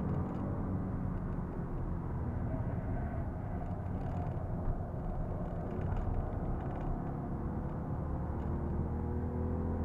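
Ford Fiesta (80 PS) driven at speed on a race track, heard from inside the cabin: steady engine drone under heavy tyre and road noise.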